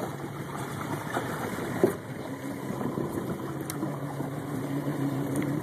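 Fishing boat's engine idling, a steady low hum that comes through more clearly about two seconds in, over wind and water noise. A single sharp knock sounds just before the hum strengthens.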